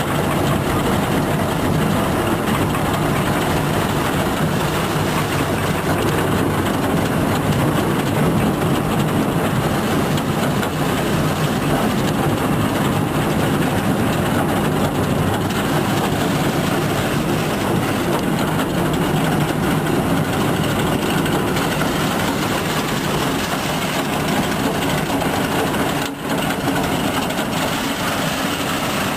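International IH 750 PTO tub grinder running steadily, driven off a tractor's power take-off, a continuous mechanical din of engine and rattling machinery. There is one brief dip in level a few seconds before the end.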